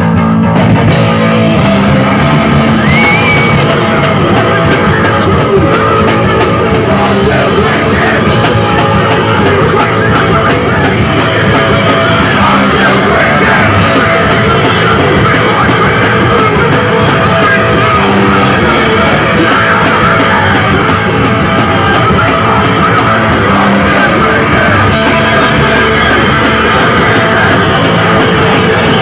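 Loud rock music with shouted vocals, played without a break by a band with electric guitars.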